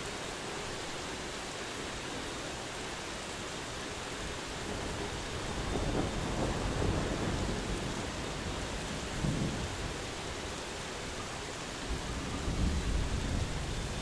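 Medium-intensity rain falling steadily, with distant thunder rumbling from about five seconds in, swelling again briefly near nine seconds and once more in the last couple of seconds.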